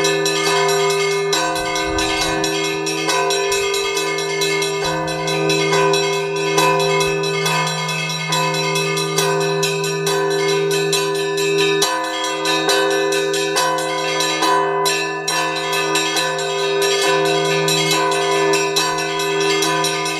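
Russian Orthodox church bells rung by hand on a five-bell belfry. The smaller bells are struck in a rapid, continuous peal over the steady hum of the larger bells.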